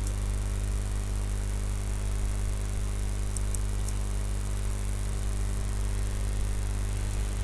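Steady electrical hum with background hiss: a mains buzz picked up by the microphone. There are a few faint clicks about three to four seconds in.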